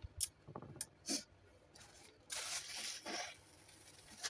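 Close-up mouth noises from a person at the end of a meal: a few light clicks, then about a second of hissing air drawn in sharply.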